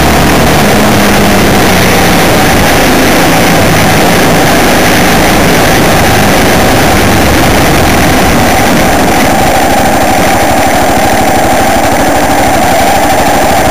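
Loud, steady engine and road noise of a vehicle driving along a gravel track, picked up by an onboard camera.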